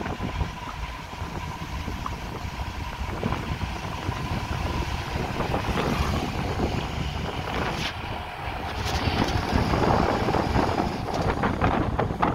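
Bus travelling at speed along a highway, heard from inside: a steady mix of engine and road noise with wind buffeting the microphone, and a few sharp clicks near the end.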